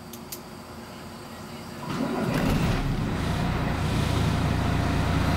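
City bus diesel engine heard from inside the cabin of a Scania MaxCi low-floor bus. It is fairly quiet at first, with a couple of faint clicks. About two seconds in, a deep rumble swells up and then runs loud and steady.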